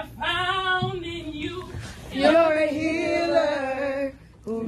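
A woman singing a worship song in two long held phrases, her voice wavering on the sustained notes, with a brief break near the end.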